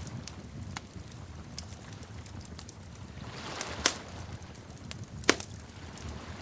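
Wood fire crackling over a low steady rumble, with scattered small snaps and two louder sharp pops about four and five seconds in.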